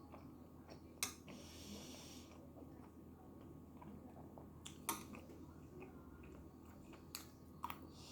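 Quiet chewing of tteokbokki, with a few sharp clicks: one about a second in, one near the middle and two close together near the end.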